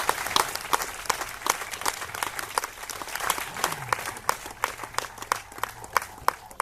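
Audience applause: many hands clapping, thinning out to scattered claps toward the end.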